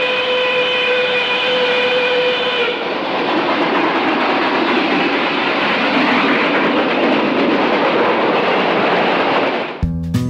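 Steam locomotive whistle blowing one steady note for about three seconds, then the noisy rush of the locomotive passing close with steam hissing. Guitar music cuts in just before the end.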